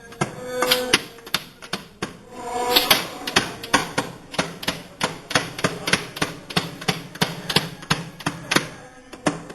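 Hammer blows on a wooden barrel during cooperage assembly: a few scattered strikes, then a fast run of about five blows a second.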